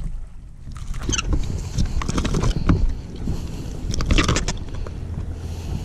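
A hooked bass splashing at the surface and being swung aboard the boat, with a handful of sharp knocks and splashes; the loudest come about four seconds in as the fish comes over the side. A low steady hum runs underneath.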